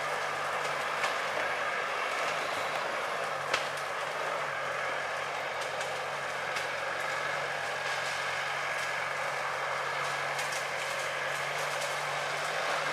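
Valtra A124 tractor's engine running steadily under load as it hauls a loaded log trailer, with light rattles and one sharp knock about three and a half seconds in.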